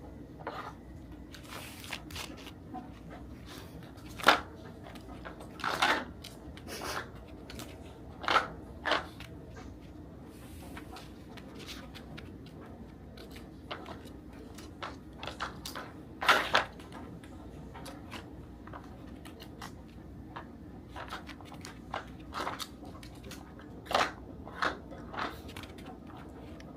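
Senior dog rooting through a nosework toy and eating the treats it finds: irregular short crunches and rustles, a few louder ones.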